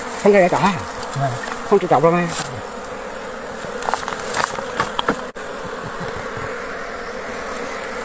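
A swarm of honeybees buzzing steadily around their wild nest as its comb is cut out, with short bits of voices in the first couple of seconds.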